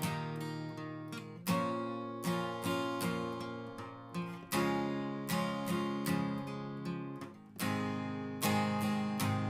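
Background music: acoustic guitar strumming chords, each strum ringing out and fading.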